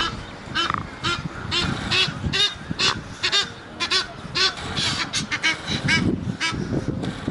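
Several geese honking in short, overlapping calls, about two a second.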